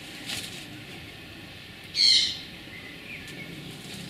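A short, loud bird call about two seconds in, with a fainter chirp a second later. Near the start there is a brief rustle as a fox cub scuffles against a twig-and-straw hedgehog house.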